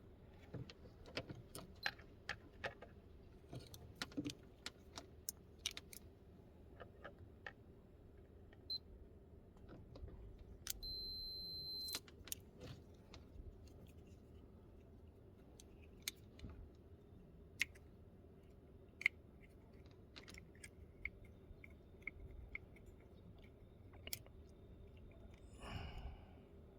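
Scattered small clicks and taps of tools and parts being handled, with one steady electronic beep lasting about a second near the middle.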